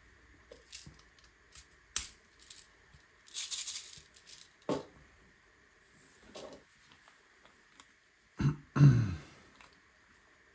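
Plastic LEGO pieces rattling and clicking as they are handled, with a short shaken rattle about three and a half seconds in. Two louder, heavier knocks come in quick succession near the end.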